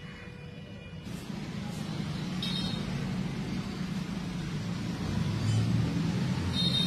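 Steady low rumble of background noise that grows louder about a second in, with two brief high squeaks, one around two and a half seconds in and one near the end.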